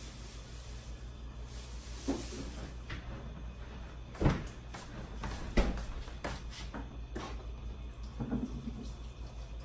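Several scattered knocks and clunks of kitchen items being handled, the two loudest about four and five and a half seconds in, over a steady low hum.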